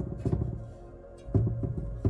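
Soft music under two clusters of knocks and clicks, one at the start and another about a second and a half in: PC parts being handled and fitted while the motherboard goes into the case.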